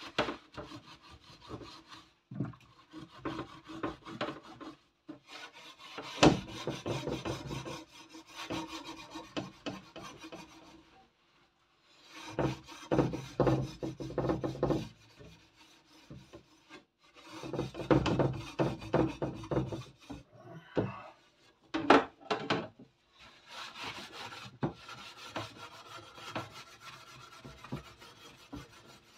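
Soap-filled scouring sponge scrubbed hard back and forth over the wires of a metal oven rack. It comes in runs of quick strokes lasting a few seconds, with short pauses between them.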